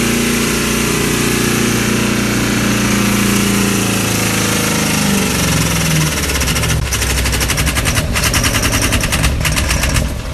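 Ford Super Duty pickup's engine running at high, steady revs while heavy smoke pours from its engine bay. About five seconds in the pitch falls and it turns into a rapid, loud knocking clatter: the engine is failing.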